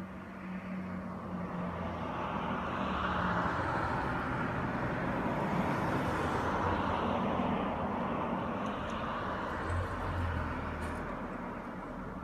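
A vehicle going past: a rushing noise that swells over about six seconds and then fades.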